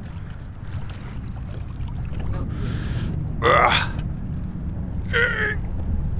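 A man grunting with effort twice, about three and a half and five seconds in, as he hauls on a rope to free a magnet-fishing magnet snagged fast on the lake bottom. Under it runs a steady low rumble of wind on the microphone.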